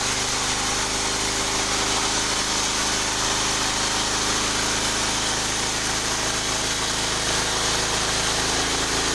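Engine-driven sawmill running steadily during a test cut of bayur wood, a constant engine drone with a bright, even sawing hiss above it.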